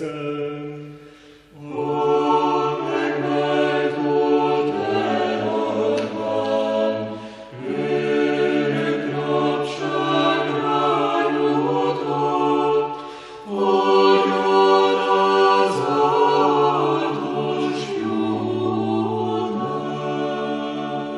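Orthodox church choir singing a cappella chant in held chords over a sustained low bass line, in long phrases broken by short breaths about 1.5, 7.5 and 13.5 seconds in.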